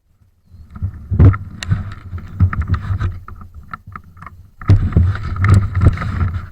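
Loud rumbling and rubbing noise right on the microphone, with scattered sharp knocks. It comes in two stretches, with a short break about four seconds in.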